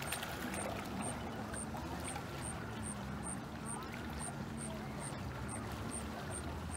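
Small lake waves lapping and splashing against shoreline rocks. A short, high peep repeats steadily about two or three times a second.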